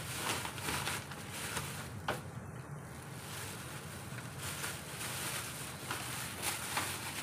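Whole spices (bay leaves, cinnamon, star anise, cumin and cardamom) sizzling in hot oil in an aluminium pot: a steady hiss with a few small pops.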